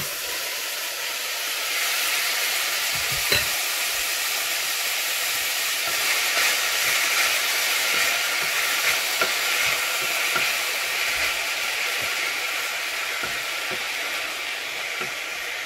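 Chopped red onion sizzling steadily in a hot stainless steel saucepan without oil, giving off its water as it cooks, while a wooden spoon stirs it. There is a single sharp knock about three seconds in and small scraping clicks throughout.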